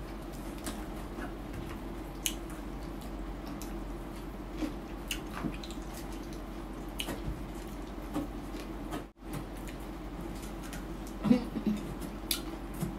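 Fingers tearing and picking apart a crispy roast whole chicken, with scattered small crackles and wet squishes of skin, meat and bone and a louder cluster of crackles near the end, over a steady low hum.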